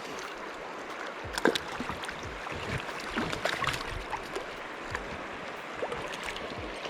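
River water flowing over rocks, a steady rushing, with a few scattered small clicks and knocks, the sharpest about a second and a half in.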